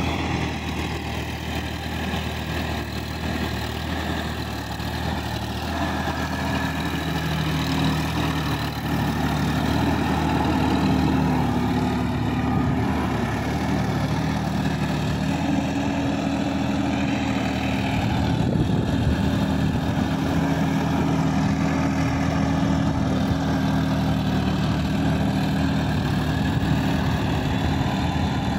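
Sonalika DI-50 RX Supreme tractor's diesel engine running steadily under load while its rotavator churns through a flooded paddy field. The sound gets louder about eight to ten seconds in and stays up.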